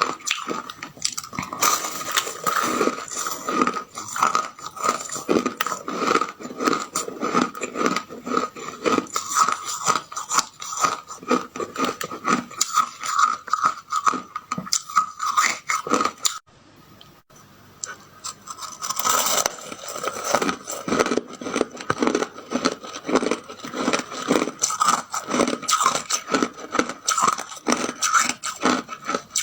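A person biting and chewing ice, a fast, continuous run of crunches that stops for a couple of seconds a little past the middle and then starts again.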